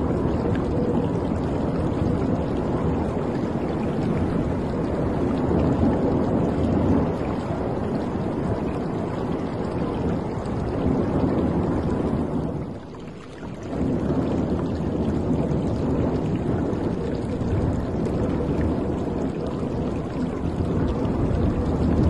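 Water rushing and washing against the hull of a moving cruise ship, a steady churning rush with a faint steady hum beneath it; the rush drops away briefly about thirteen seconds in.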